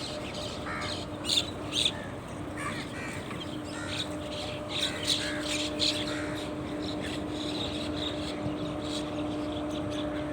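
Crows cawing, a run of short harsh calls, the loudest two a little after one second and just before two seconds in, with more calls clustered between about two and a half and six seconds. A steady low hum runs underneath.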